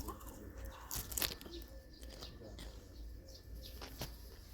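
A person chewing and crunching microwave popcorn, with several sharp crunches, the loudest about a second in.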